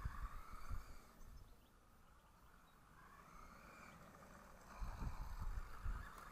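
Electric motor and drivetrain of a 1986 Kyosho Gallop 4WDS MK II radio-controlled buggy whining as it drives across grass, the pitch rising and falling with the throttle. It is louder in the first second, fades through the middle as the buggy runs further off, and grows louder again about five seconds in as it comes back, over a low rumble.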